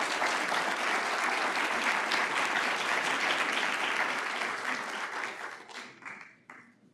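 Audience applauding, dying away to a few last claps about six seconds in.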